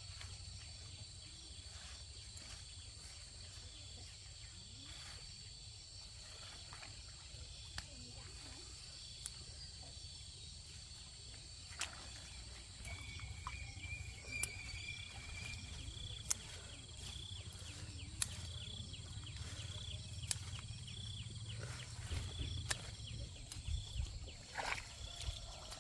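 Countryside ambience: insects call in steady high-pitched tones over a low rumble, with scattered sharp clicks. From about halfway through, a high note pulses in quick repeats.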